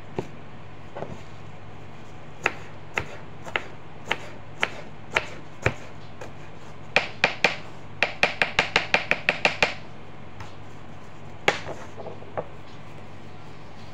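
Kitchen knife chopping onion on a cutting board: single chops about every half second, then a quick run of about a dozen chops, and a few scattered chops near the end.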